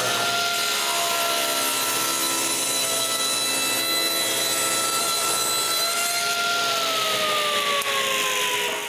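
Power saw ripping a piece of walnut lengthwise in half, running steadily. Its pitch slides downward over the last couple of seconds, and the sound stops just at the end.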